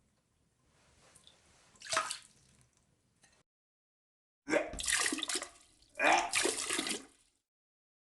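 Vomit splashing into water: a short splash about two seconds in, then two longer gushes one after the other.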